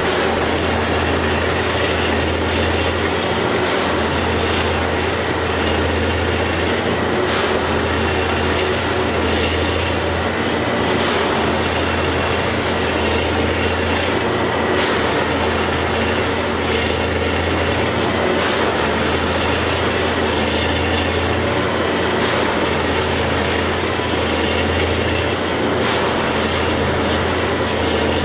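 Railway track maintenance machinery running steadily: a low engine hum under a constant mechanical noise, with faint clicks about every four seconds.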